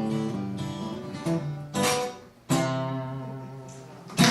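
Solo acoustic guitar closing a song: picked notes, a brief pause, then a final strummed chord left to ring and fade. Applause breaks out right at the end.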